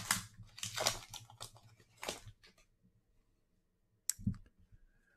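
The wrapper of a 2021 Donruss football card pack being torn open and crinkled: a run of crackling rustles over the first two seconds or so. One sharp click about four seconds in.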